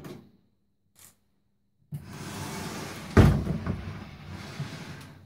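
A Samsung CE73J combination microwave oven being slid and turned round on a kitchen worktop. A scraping rumble starts suddenly about two seconds in, with one loud thump about a second later.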